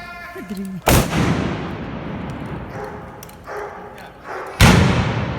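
Two loud blunderbuss (trabuc) shots fired with blank black-powder charges, about four seconds apart, each echoing and dying away slowly.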